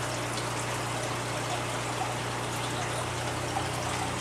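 Steady trickling and splashing of water from running aquarium filters and aeration, over a low steady hum.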